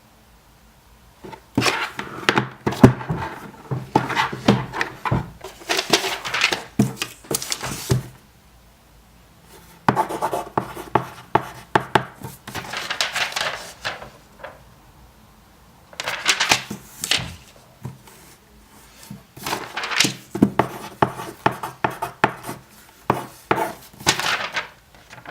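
Scratchy rubbing and clicking handling noises in four stretches, each a few seconds long, separated by short pauses.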